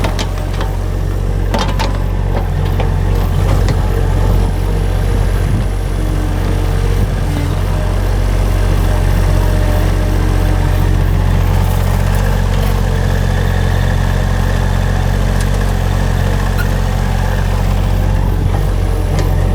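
Engine of a small work vehicle running steadily at idle, with a couple of sharp knocks in the first two seconds.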